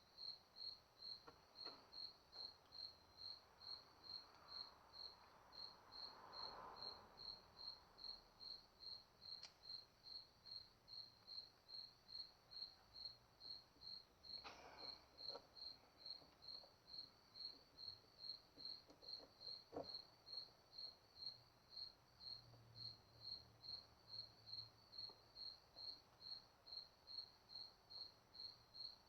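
A cricket chirping steadily, about two high chirps a second, with a few faint clicks near the middle.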